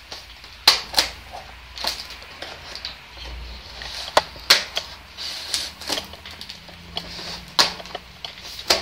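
Scissors cutting the packing tape along the top of a cardboard box: about eight sharp, irregular snips and clicks of the blades, with scratchy rubbing of tape and cardboard between them.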